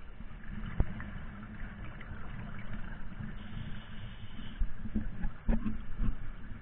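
Muffled underwater ambience: a steady low rumble and water noise, with a sharp click about a second in and a cluster of knocks about five and a half seconds in.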